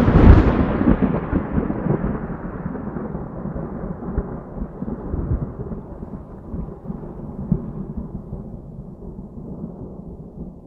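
A thunderclap. It breaks loud at the start, then rolls on as a long low rumble that slowly dies away over about ten seconds.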